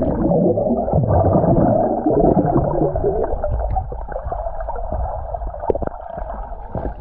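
Muffled underwater sound from a camera held below the surface of a river: gurgling water and air bubbles with a low rumble, all the high sounds gone.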